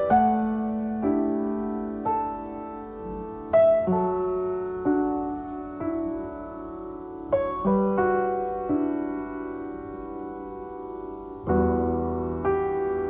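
Slow background piano music: notes and chords struck every second or so and left to ring out, with a deep bass chord coming in near the end.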